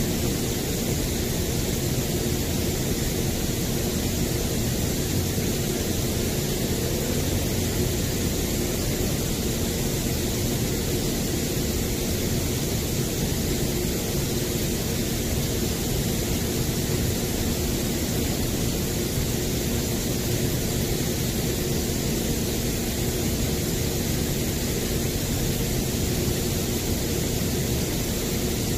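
Misting equipment running steadily as it sprays a fog of treatment agent: a constant machine drone with a few low hum tones under a steady high hiss of spray.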